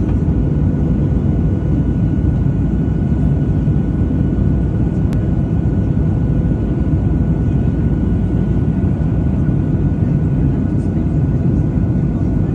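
Jet airliner cabin noise in flight, heard from a window seat beside the engine: a steady low rumble of engines and airflow with a faint, even engine whine over it. A single small click about five seconds in.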